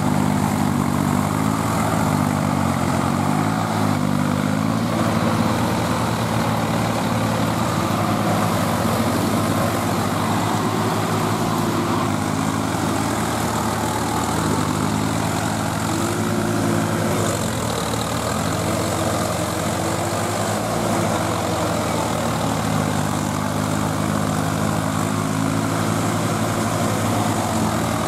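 Swaraj 855 FE tractor's diesel engine running hard under load as it pulls through deep mud, its engine speed rising and falling.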